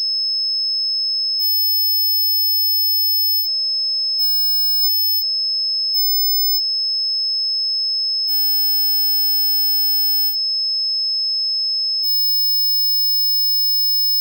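Steady high-pitched 5.2 kHz test tone, switching between a pure sine wave and a square wave built from the 5.2 kHz fundamental plus its 15.6 kHz third harmonic. The switches show as brief dips about three and a half and ten and a half seconds in.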